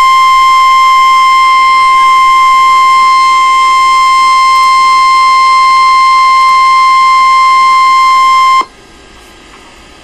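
NOAA Weather Radio warning alarm tone: one loud, steady, harsh 1050 Hz tone that cuts off sharply about eight and a half seconds in, the alert signal that comes before a National Weather Service severe thunderstorm warning.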